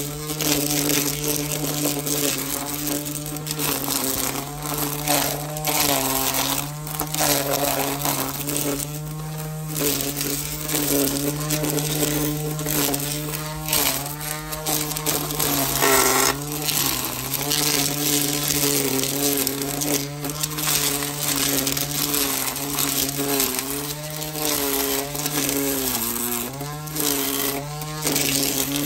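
Ryobi 18V cordless string trimmer running and cutting leafy weeds: a steady electric-motor buzz whose pitch dips briefly now and then as the line bites into the growth, over the rustle and spatter of chopped leaves.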